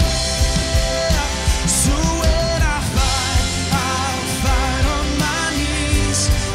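Live worship band playing a pop-rock song with acoustic and electric guitars over a steady beat, voices singing the melody as the song passes into its chorus.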